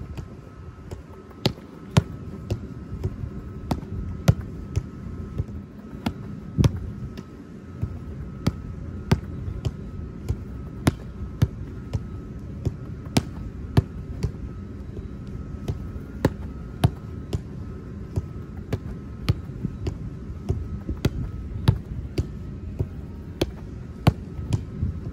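A football repeatedly kicked and trapped by foot, giving a sharp thud every second or so.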